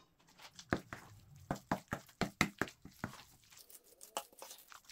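Metal spoon knocking and scraping against a metal mixing bowl while stirring a thick ricotta and minced-meat filling: a run of sharp, irregular knocks, thinning out after about three seconds.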